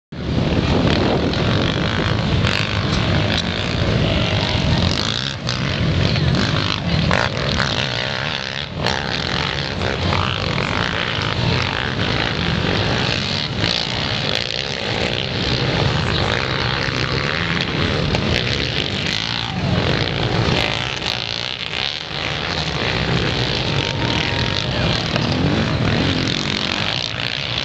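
Several racing quad engines running and revving around a dirt track, a continuous mass of engine noise that swells and eases as the riders accelerate and pass.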